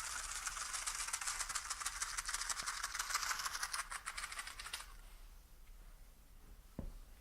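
Fast, continuous shaking rattle, like a maraca, that stops abruptly about five seconds in; a single soft thump follows near the end.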